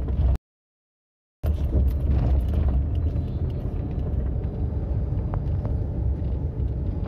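Steady low rumble inside a car cabin on the move: engine and road noise. About half a second in, the sound drops out to dead silence for about a second, then the rumble resumes.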